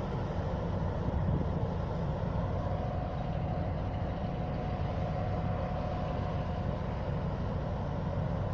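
MÁV M62 diesel locomotive's two-stroke V12 diesel engine idling steadily while the locomotive stands still, with a thin steady whine over the low engine note.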